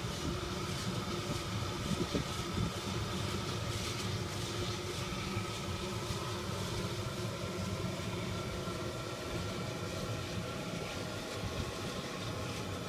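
Steady low rumble of a propane burner firing under a kettle-corn kettle as the oil and sugar heat before the corn starts to pop, with a few faint knocks in the first few seconds.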